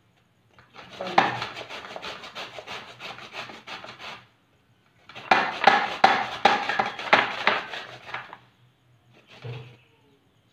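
A carrot being grated by hand on a handheld grater: quick, repeated rasping strokes in two runs of a few seconds each with a short pause between, then one brief scrape near the end.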